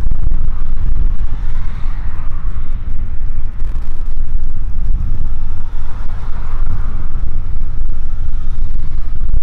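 Wind buffeting the microphone of a phone mounted on a moving bicycle: a loud, steady rumble, with a rushing road noise that rises and falls.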